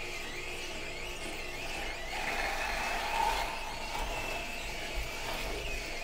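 Green Star twin-gear juicer running as produce is pressed down its chute with the plunger: a steady motor whir under a wavering high whine from the crushing gears, growing a little louder with a low rumble from about two seconds in.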